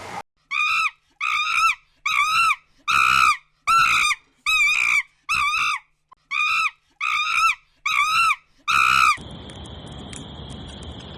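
An animal calling: about fourteen short, loud calls at roughly two a second, each rising and falling in pitch. At about nine seconds in the calls stop, and a steady high-pitched hum over a faint hiss takes over.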